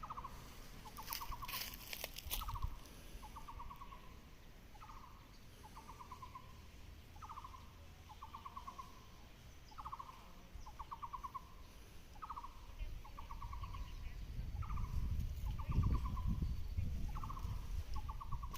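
An animal calling over and over: a rhythmic series of rattling, pulsed notes alternating short and longer, about one a second. A few knocks come early, and low rustling or footsteps build near the end.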